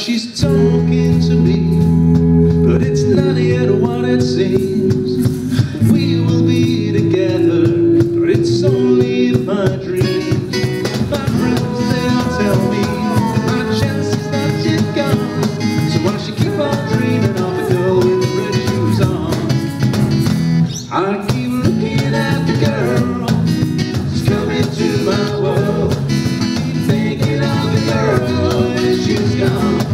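A live band playing a song with guitar and singing.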